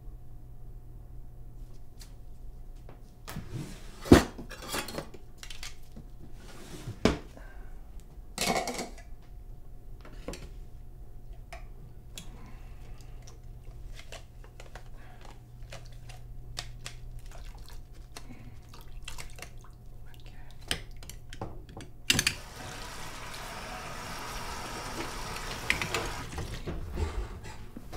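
Hand dishwashing at a stainless steel sink: metal tongs and a plastic cup clink and knock against the sink in scattered strikes, with a few louder knocks. About two-thirds of the way in, a steady rush of water sets in and carries on to the end.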